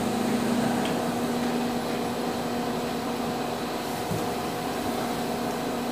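Blacksmith's forge fire under an air blast: a steady rush of air through the burning fire, with a low hum that fades out about halfway through.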